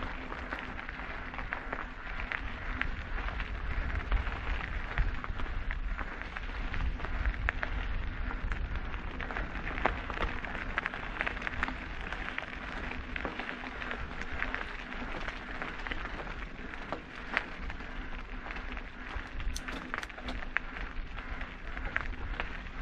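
Mountain bike tyres rolling over a gravel and stony trail: a steady dense crackle of grit and small stones, with wind rumbling on the microphone and a faint steady hum underneath.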